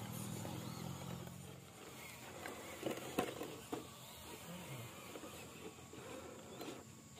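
Small RC crawler truck running: a steady motor-and-gear hum that fades out about a second and a half in, followed by a few scattered clicks and knocks.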